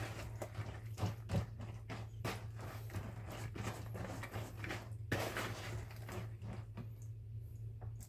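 Wet Christmas pudding batter being mixed in a bowl, with irregular soft knocks and scrapes, sparser in the second half, over a steady low hum.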